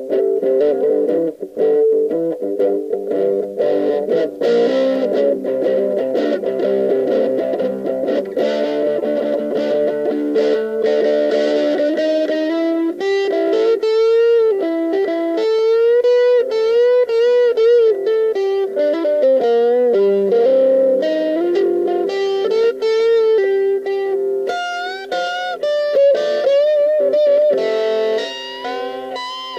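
Overdriven electric guitar played solo in a 'brown sound' tone: picked chord riffs for about the first twelve seconds, then single-note lead lines with string bends and vibrato.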